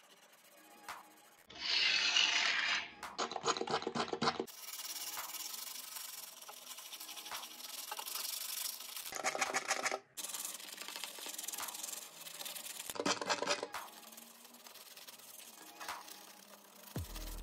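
Toothbrush bristles scrubbing a rusty metal model-truck chassis part through soapy foam, in runs of quick back-and-forth strokes. There is a short loud hiss about two seconds in.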